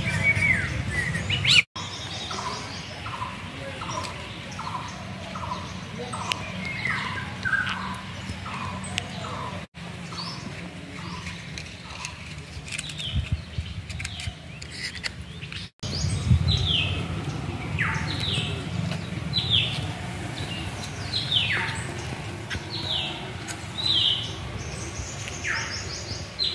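Wild birds calling: a run of short, evenly spaced notes, about two a second, and later a string of higher, quick downward-sliding calls, over a low rumble of wind or handling noise.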